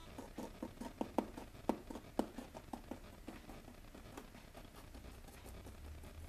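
Light, irregular clicking taps, a few a second, from a metal teaspoon being tapped to sprinkle fine model-railroad ballast onto the track shoulder. The taps thin out after about three seconds.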